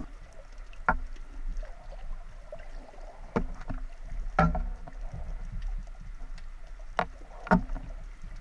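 Underwater sound picked up by a camera mounted on a wooden speargun: a steady low water rumble with five sharp knocks, most likely from the gun and the speared fish being handled.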